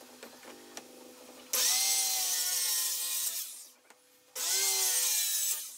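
A handheld circular saw cutting through a wooden board in two passes. Each time it starts suddenly with a high motor whine over the hiss of the blade in the wood. The first pass lasts about two seconds and dies away, and the second, shorter one follows after a brief pause.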